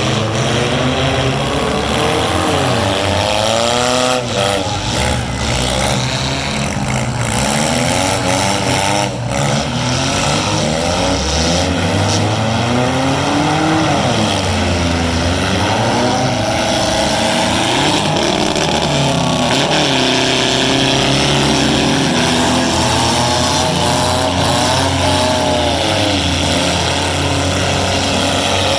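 Several 4-cylinder demolition derby car engines revving, their pitch rising and falling as the cars accelerate and back off.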